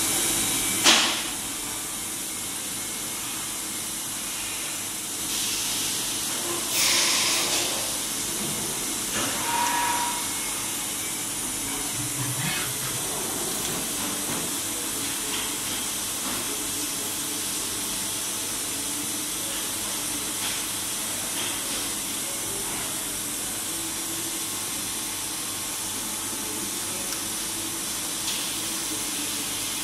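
Steady hiss from a Tongtai TMV-510A vertical machining center running with a dial test indicator in its spindle. A few brief louder rushes of noise come in the first eight seconds, and a short tone sounds about ten seconds in.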